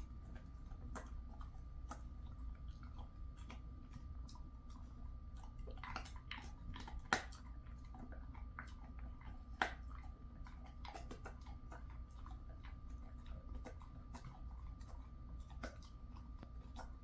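Jindo dog chewing a kangaroo treat: irregular crunches and clicks of teeth on the treat, with a few louder crunches about six, seven and ten seconds in.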